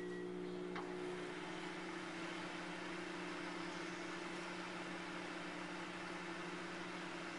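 Microwave oven running with a steady hum and fan hiss while it heats liquid soft-plastic bait (plastisol).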